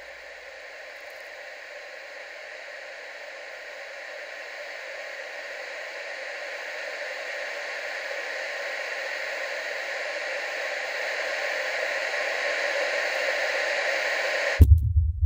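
Horror-film sound design: a steady static-like hiss swelling slowly louder, then cut off suddenly near the end by a deep low boom.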